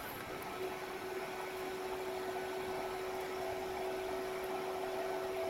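Mikrosha 2000 induction heater running under load, heating a stainless steel tube in its coil: a steady fan-like hiss with a steady hum-tone that sets in about half a second in, joined by a second, higher tone a little past halfway.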